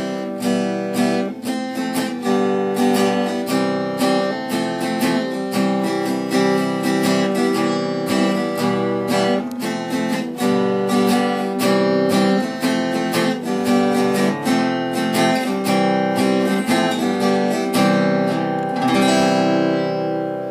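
Outro music on acoustic guitar, picked in a steady run of notes and chords, with a final chord left ringing near the end.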